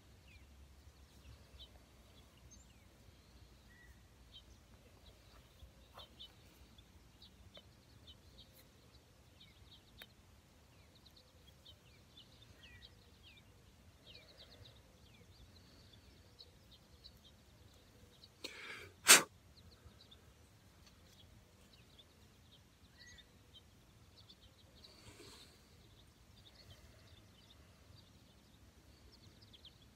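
Faint outdoor background with scattered short, high bird chirps. About two-thirds of the way through, a man sneezes once, a breathy intake ending in a single very loud, sharp burst.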